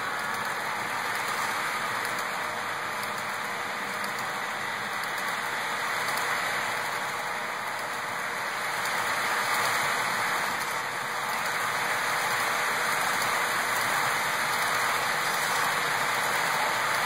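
HO-scale coal hopper cars rolling past on model railroad track: a steady rolling hiss of metal wheels on the rails.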